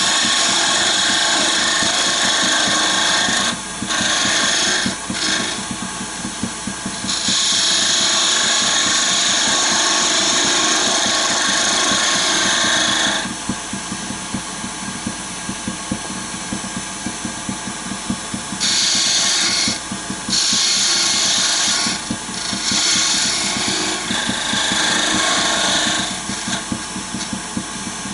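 Wood lathe spinning a small blank while a diamond parting tool cuts into the wood in repeated passes: a hissing scrape lasting a few seconds at a time, with the longest cut from about seven to thirteen seconds in. Between cuts the lathe keeps running more quietly.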